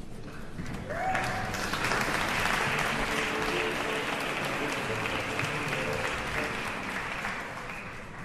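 Audience applauding as the singer comes on stage. The clapping swells about a second in and tapers off near the end.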